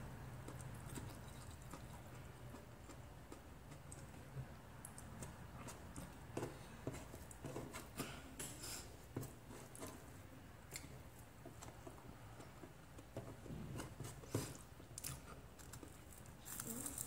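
Faint close-up eating sounds: chewing, with soft, irregular mouth and finger clicks as grilled milkfish and rice are eaten by hand.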